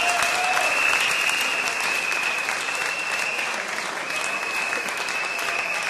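An audience applauding in a hall after a speech, dense clapping with a high, steady tone running through most of it.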